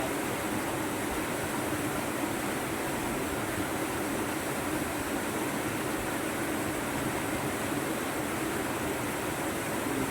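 Steady rush of fast-flowing water from a waterfall and swift river, an even unbroken noise.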